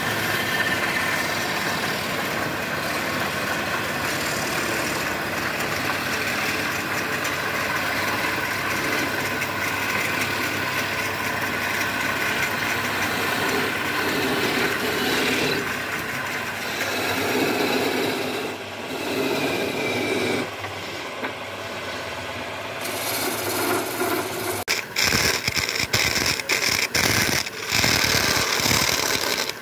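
Wood lathe running while a wooden stick rubs against the spinning wooden tray, a steady rasping hum. Near the end the sound turns choppy, with sudden breaks, as a thin metal tool cuts into the spinning piece.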